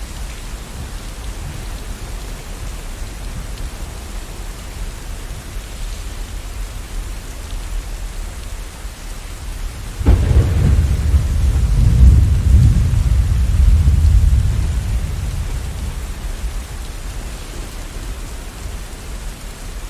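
Steady rain falling, with a clap of thunder about halfway through: a sudden crack that rolls into a deep rumble for several seconds, then fades back under the rain.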